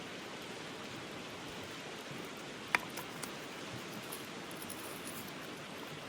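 Steady rush of a flowing stream. A sharp click sounds a little under three seconds in, followed by two fainter ticks.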